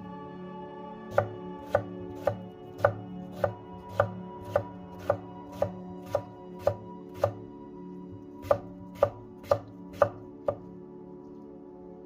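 Chef's knife cutting stacked raw potato slices into thin strips on a wooden cutting board: sharp knocks of the blade on the board about twice a second, a short pause past the middle, then five more, over a steady low hum.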